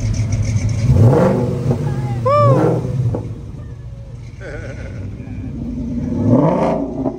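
A car engine running at idle and revved twice, rising in pitch about a second in and again about six seconds in. About two and a half seconds in there is a short high call that rises and falls.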